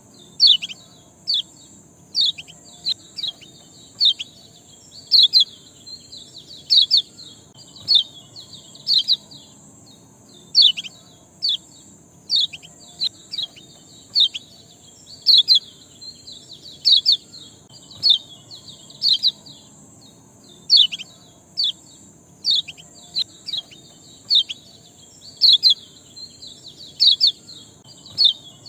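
A small cage songbird calling in a steady series of short, sharp chirps, about one to two a second, each a quick downward slide, over a steady high hiss.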